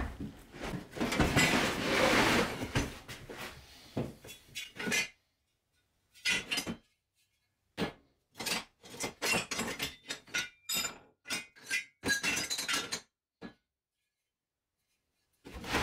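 Scrap steel offcuts (square tube and flat bar) clattering and clinking against each other as they are rummaged through in a plastic crate. A dense rattle comes first, then separate knocks and clinks as single pieces are lifted and handled, and a short pause near the end.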